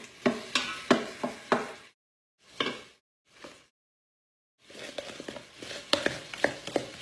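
Wooden spoon stirring, with sharp knocks against the container, broken by a couple of short silent pauses. From about two-thirds of the way in, it scrapes steadily through thick cornbread batter in a mixing bowl, with knocks against the bowl.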